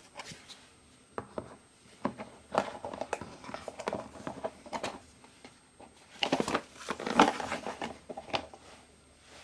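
A clear plastic food container and a plastic cutting board clicking, knocking and scraping against each other as the board is laid over the container and the two are turned upside down to turn out a set dessert. The sounds come in irregular bursts and are busiest from about six to seven and a half seconds in.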